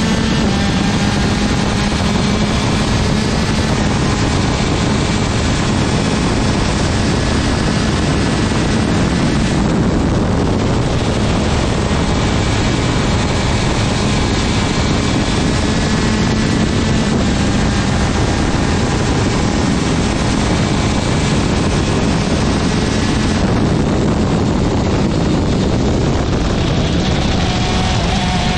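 A 125cc two-stroke TM superkart engine running hard on track, its note steady under heavy wind noise on the microphone.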